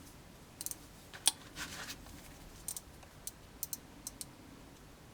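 Handling noises: a scatter of small, sharp clicks, about a dozen, with a louder click about a second in and a brief rustle just after it.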